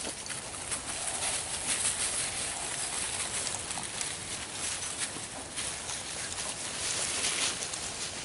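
Paws and footsteps scuffing and crunching on dry, leaf-strewn dirt as golden retriever puppies and their mother move about: a dense, uneven run of small scratches.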